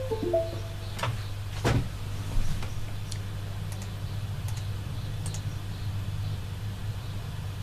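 A computer's short falling chime of several quick tones as the USB hard drive is plugged in, followed by a few sharp clicks about one and two seconds in, over a steady low hum.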